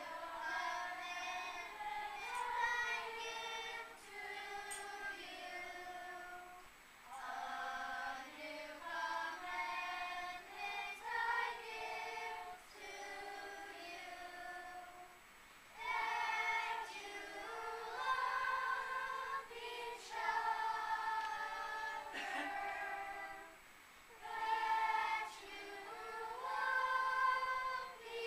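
Children's choir singing together in sung phrases, with brief pauses between them every several seconds.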